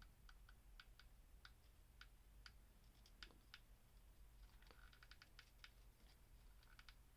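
Faint, irregular small clicks from a hot glue gun's trigger as glue is spread along a stem, with a quicker run of clicks about five seconds in, over near silence.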